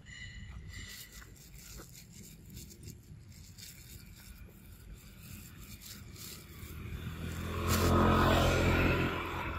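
An engine vehicle passing close by: its engine sound swells up over a couple of seconds, peaks, and fades near the end. A few faint clicks are heard earlier.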